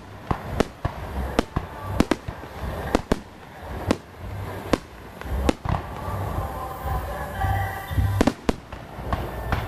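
Fireworks going off: a run of sharp, irregularly spaced bangs, about one or two a second, over a steady low rumble.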